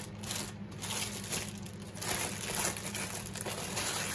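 Clear plastic wrapping crinkling and rustling in irregular bursts as a rolled diamond painting canvas is slid out of it by hand.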